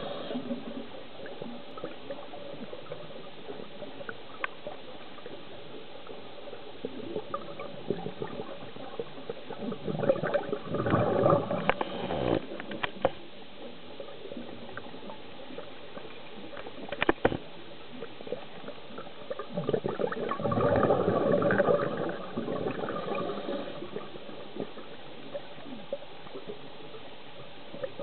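Scuba diver's exhaled breath bubbling out of the regulator twice, each burst lasting two to three seconds, about ten seconds apart, over a steady underwater hiss. A sharp click comes shortly before the second burst.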